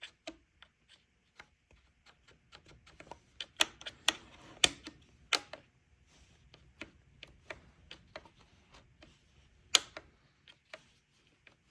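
Irregular clicks, taps and knocks of hands handling a chainsaw at close range, with a few sharper knocks about a third of the way in and again near the end.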